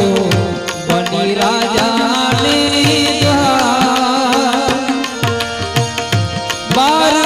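Instrumental interlude of Gujarati devotional bhajan music: a melody with quick ornamental pitch bends over a steady hand-drum rhythm whose low bass strokes slide down in pitch.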